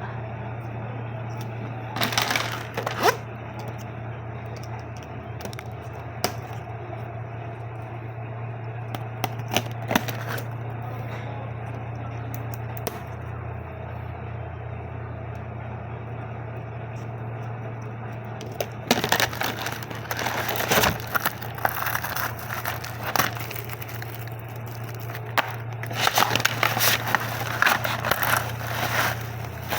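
Plastic packaging being handled and unwrapped, with bursts of crinkling and crackling: one early, then a longer run over the second half. A steady low hum sits underneath.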